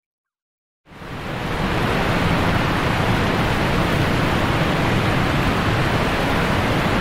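Silence, then about a second in a steady rushing noise fades in quickly and holds, even and without any tone, like surf or static.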